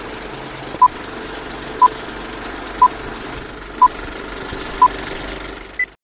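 Film-leader countdown sound effect: five short beeps of the same tone, one a second, over the steady clatter of a running film projector, then one higher beep just before everything cuts off.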